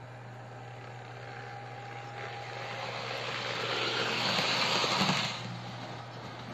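OO gauge model underground train running along the track and passing close by, a rolling rumble and rattle that grows steadily louder, peaks about four to five seconds in, then drops away quickly. A steady low hum runs underneath.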